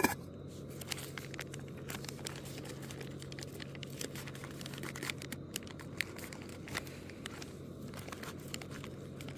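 Small camp stove heating water: a steady low hum with scattered light crackles and crinkles.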